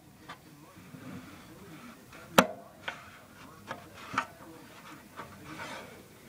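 Hand handling the metal case of a WW2 T-19/ARC-5 aircraft transmitter: scattered clicks and taps, the loudest a sharp click about two and a half seconds in, with light rubbing between.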